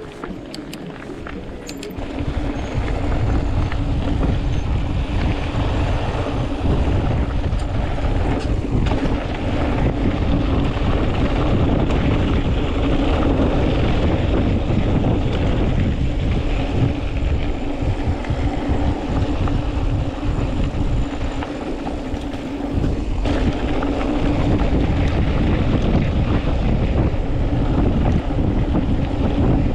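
Wind rushing and buffeting over a mountain biker's action-camera microphone while riding the trail, with a steady low hum underneath. It gets louder about two seconds in, as speed picks up, and eases briefly twice.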